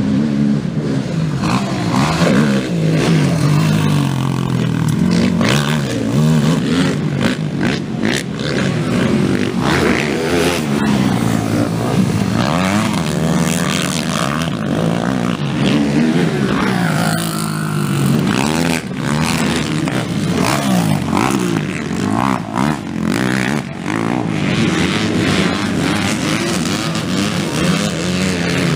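Several racing ATV engines revving up and down through the gears. The pitch climbs and drops over and over, with no pause.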